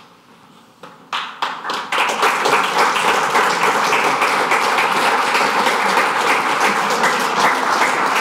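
A small audience applauding: a few scattered claps about a second in, quickly filling out into steady applause.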